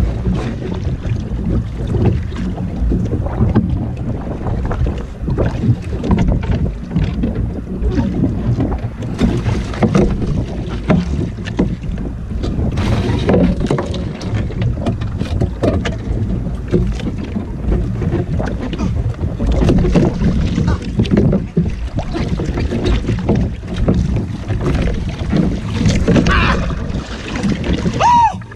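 Wind buffeting the microphone of a small outrigger canoe, with water sloshing against the hull; loud and uneven, with no engine running.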